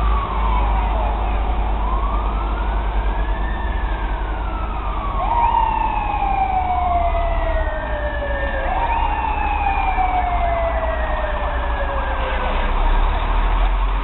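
Fire truck sirens wailing, the pitch sweeping slowly up and down with each rise and fall lasting several seconds, and overlapping sweeps in the middle stretch, over a steady low rumble.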